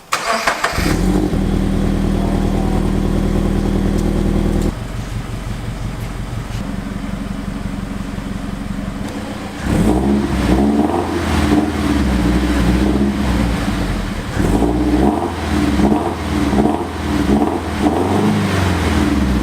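Toyota 86's 2.0-litre flat-four engine starting up about half a second in and running at a steady, fast cold-start idle. About five seconds in it drops to a quieter, lower idle. From about ten seconds in it runs louder, its pitch rising and falling.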